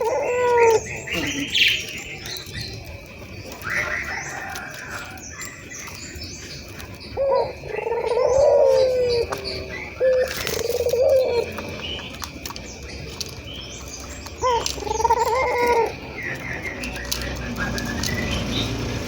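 Puter doves cooing, with about four phrases of rolling, bending coos. Smaller birds chirp in between, and a faint steady high tone sounds underneath.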